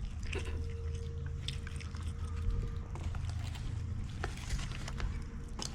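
Chewing and mouth sounds of someone eating close to the microphone, with scattered small clicks over a low steady rumble.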